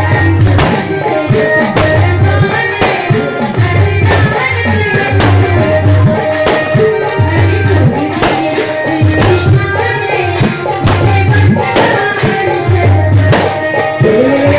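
Loud music with a steady, driving drum beat and tabla-like hand-drum percussion, with a melody line over it.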